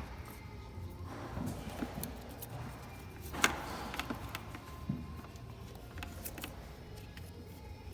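Small plastic and metal clicks and rattles of engine-bay connectors and hose fittings being handled and snapped back into place, with one sharp click about three and a half seconds in, over a low steady hum.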